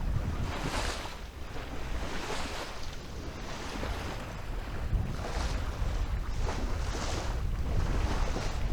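Water rushing and splashing along the hull of a Maxi 95 sailboat under sail, coming in surges every second or two, with wind rumbling on the microphone.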